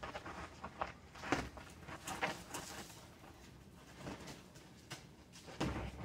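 Boxing sparring on packed dirt: irregular scuffs of shuffling feet mixed with dull thuds of gloved punches and body contact. The loudest thud comes about a second and a half in, and another just before the end.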